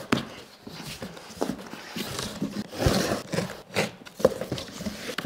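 A cardboard shipping box being opened by hand: flaps pulled open and folded back, with rustling, scraping and a few knocks on the cardboard.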